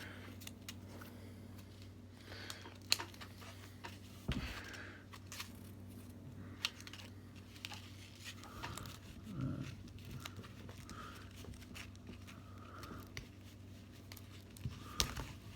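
Quiet handling of a Velcro cable tie: scattered small clicks and short scratchy tearing rustles, over a faint steady low hum.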